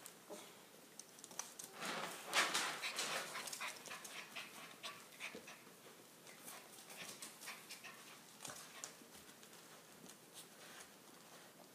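A 15-week-old male puppy breathing hard and scuffling as it plays, loudest in a flurry of rapid, noisy breaths about two seconds in.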